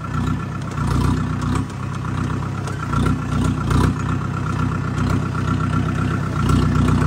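A vehicle engine running steadily at low revs.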